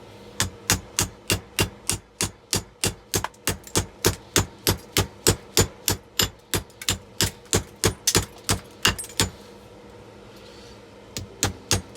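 A sharpened brick hammer striking a small-engine magneto over and over, chopping into it like a chisel, in a fast steady run of about three to four blows a second. The blows pause for about two seconds near the end, then start again.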